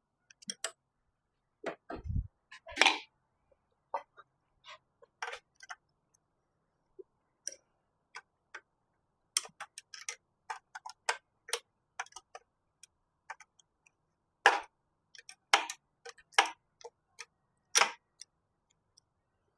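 Hand tools working on a car's transmission from underneath: a scattered series of sharp metallic clicks and clinks, bunching up about halfway through and again near the end, with one dull thud about two seconds in.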